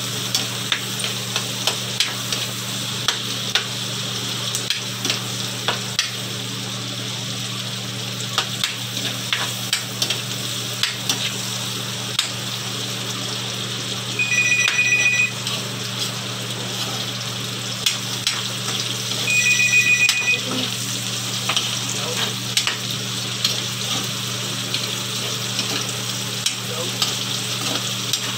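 Pork and garlic sizzling in a wok over a gas burner, with a metal spatula scraping and clicking against the pan as it is stirred. A phone's electronic ring sounds briefly twice, about five seconds apart, near the middle.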